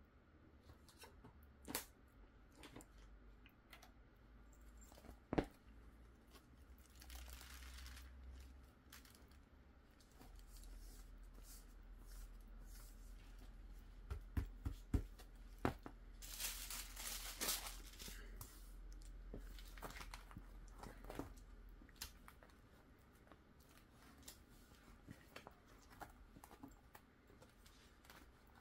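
Faint rustling and crinkling from a 9-pocket card portfolio being handled and opened, as its plastic sleeve pages and a paper protective sheet are turned. Scattered light taps and clicks run through it, with a quick run of clicks just before the loudest rustle about halfway through.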